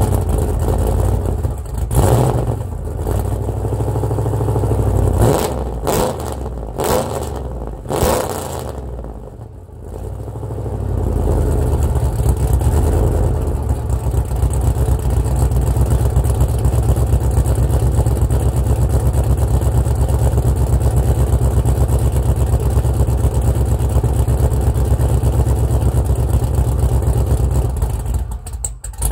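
Chevrolet Trailblazer SS's LS2 V8 running through newly fitted Speed Engineering headers and Y-pipe. It is blipped hard several times in the first ten seconds or so, drops back, then settles into a loud, steady idle.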